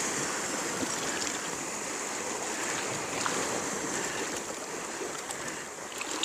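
Sea water washing against shoreline rocks: a steady rushing wash with a few faint ticks.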